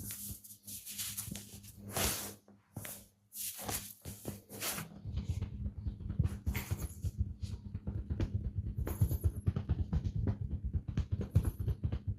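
Hands of a massage therapist working on bare skin: swishing rubbing strokes, then from about five seconds in a fast, even run of hand strikes on the body, several a second, as in chopping or slapping percussive massage.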